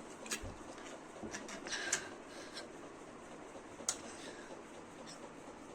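A person drinking water: faint swallowing and a few short clicks, with a small cluster near two seconds and a sharper click near four seconds.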